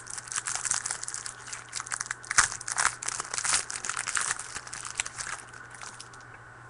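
Plastic trading card pack wrapper crinkling and tearing as it is opened and the cards are handled: a dense run of irregular crackles that dies down about five seconds in.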